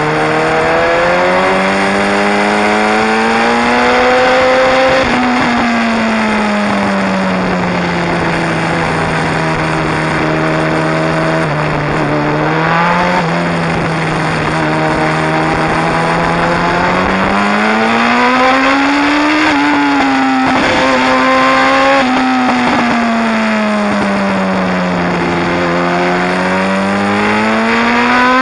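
Sport motorcycle engine pulling through a series of bends, its revs rising and falling several times as the rider accelerates out of corners and rolls off into the next, with a few quicker jumps in pitch. Wind rush runs steadily underneath.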